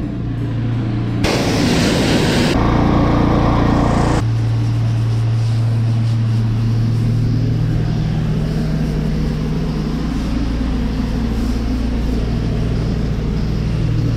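Small gas engine of a pressure-washing rig running steadily at a constant speed. A loud rushing spray hiss comes and goes over the first four seconds, then stops, leaving only the engine drone.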